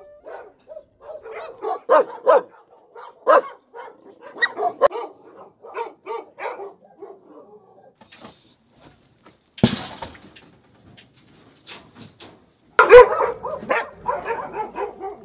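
Caged dogs barking in short, repeated barks, with a sharp clatter about ten seconds in, then louder, overlapping barking from several dogs near the end.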